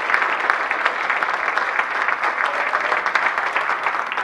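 Audience applauding: many hands clapping at once, steady in level.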